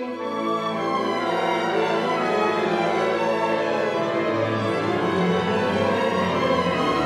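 Orchestral classical music, bowed strings holding sustained chords, with lower parts filling in about halfway through.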